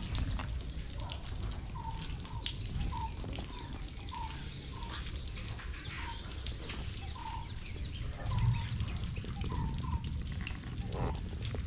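Homemade three-wheeler with a 150cc engine driving slowly past: a low rumble that swells about eight seconds in, with a short chirp repeating about twice a second.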